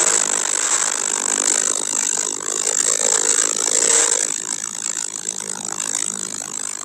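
Porsche 911 Carrera 4S (992) twin-turbo flat-six accelerating hard down a wet straight, heard from inside the car under a steady hiss of tyre and water spray. About four seconds in, the engine note drops away and the sound gets quieter as the car lifts off and slows.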